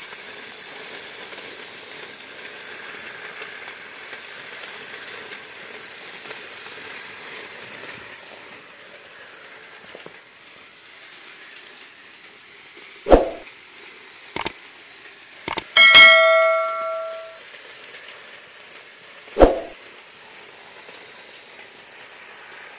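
Faint steady hiss, then in the second half a few sharp clacks and clicks of diecast toy cars and plastic track being handled, with one short metallic ring that dies away over about a second and a half.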